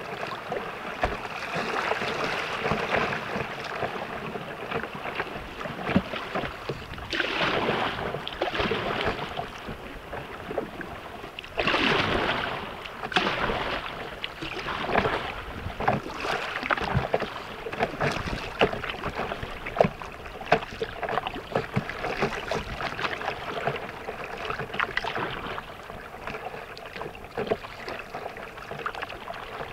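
River water rushing and splashing against a foam kayak's hull as it runs small rapids, with irregular slaps and splashes; it grows louder twice in the middle, then quietens near the end as the water smooths out.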